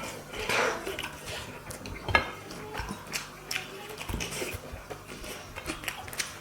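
Scattered clinks and taps of plates and dishes during a curry-and-rice meal, with one louder knock about two seconds in.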